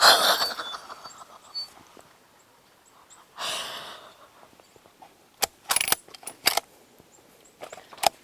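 A person's loud, sudden excited gasp or exhale that fades over about a second, then another heavy breath a few seconds later. After that come several short sharp clicks and knocks of handling gear, in a cluster at about five and a half to six and a half seconds and once more near the end.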